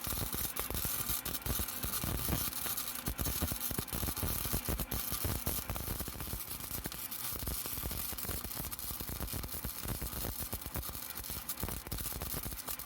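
Flux-core wire-feed welder running without shielding gas, laying a continuous bead that joins thin sheet-metal patch layers onto an exhaust pipe. The arc makes a steady, dense crackle and sputter.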